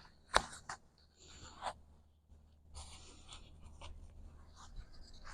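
Canopy fabric rustling and scraping as it is handled, in several short scratchy patches, with a sharp click about a third of a second in.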